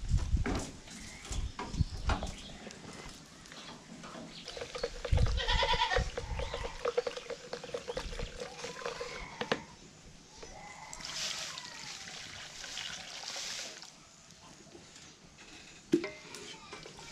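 Goats bleating: one long drawn-out bleat and a second wavering one a few seconds later. There are a few heavy knocks near the start and small clicks of utensils being handled.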